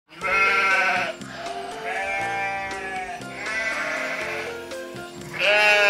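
Sheep bleating, a loud bleat at the start and another near the end with quieter ones between, over light children's background music.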